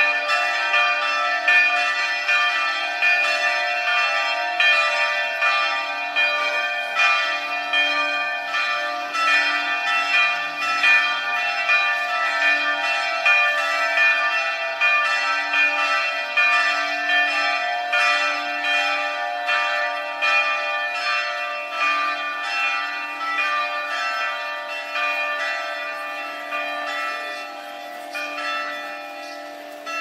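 Church bells ringing in rapid, repeated strokes, their overlapping tones hanging on between strikes. The ringing grows gradually softer over the last several seconds.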